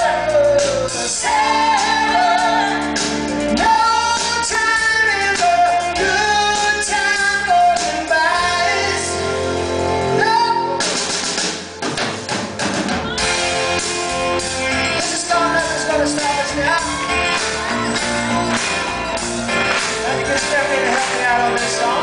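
Live rock band playing with singers, a woman's voice prominent. The music drops briefly about twelve seconds in, then picks up again.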